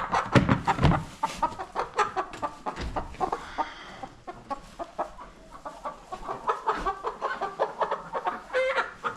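Chickens clucking and squawking as they are handled and moved into a coop, loudest in the first second, then a steady run of short clucks.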